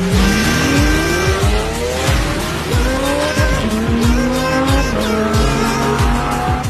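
Background music with a steady thumping beat and long rising, gliding tones that sound like an engine revving, cutting off suddenly at the end.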